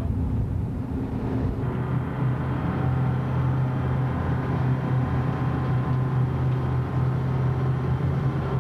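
Engines of a fast passenger boat running steadily at cruising speed. The rush of wind and wake drops away about a second and a half in, leaving a steady low engine drone heard from inside the cabin.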